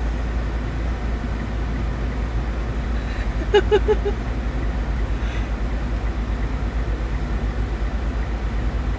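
Car engine idling, heard from inside the parked car's cabin as a steady low hum. A few short pitched blips come about three and a half seconds in.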